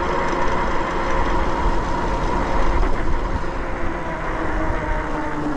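Dual Bafang hub motors of a 72 V fat-tire electric bike whining steadily under way, over a heavy rush of wind and tire noise; the whine drops a little in pitch near the end as the bike eases off.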